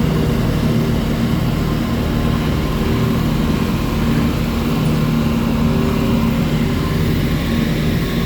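Heavy road-construction machinery engines running steadily with a low, continuous drone.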